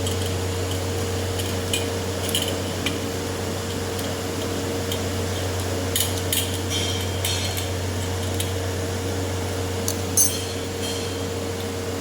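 A spoon clinking and scraping against a small dish while a honey, lemon, ginger and black-pepper mixture is stirred, in scattered clusters of short taps over a steady low hum.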